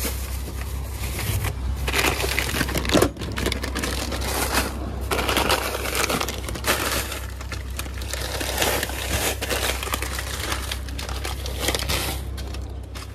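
Plastic grocery bags and crinkly candy bags rustling and crumpling as hands rummage through them and lift bags of candy out, in irregular bursts over a steady low hum.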